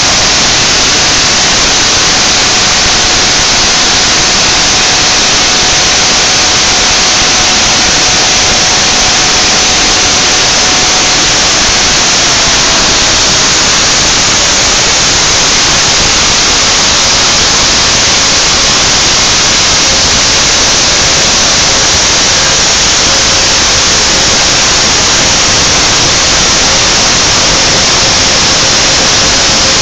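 Homemade CNC router's spindle running loud and steady as it cuts a dash face plate, a constant hiss with a faint whine that drops slightly in pitch about twelve seconds in.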